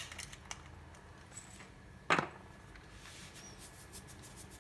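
Faint clicks from a hand pepper grinder over the fish, then one sharp knock about two seconds in as the grinder is set down on a stone countertop.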